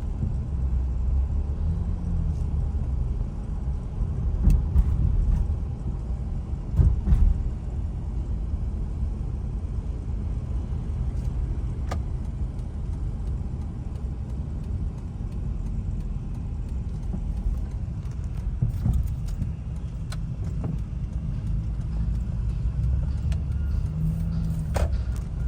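Steady low rumble of a car driving, heard from inside the cabin: road and engine noise, with a few brief louder knocks about a fifth of the way through.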